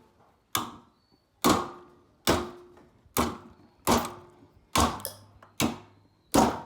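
Hammer blows on metal in a steady rhythm, eight strikes a little under a second apart, each ringing briefly.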